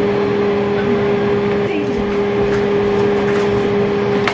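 A steady machine hum with two constant low tones over a noisy bed, like an appliance or ventilation fan running, with faint voices in the background. A single sharp click sounds near the end.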